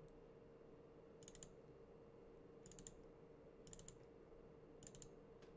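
Near silence with faint computer clicking: short clusters of two or three quick clicks about once every second or so, over a faint steady hum.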